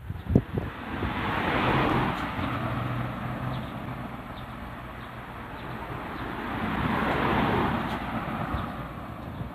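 Two road vehicles pass one after the other, each a swell of tyre and engine noise that rises and fades, the first about two seconds in and the second around seven seconds in.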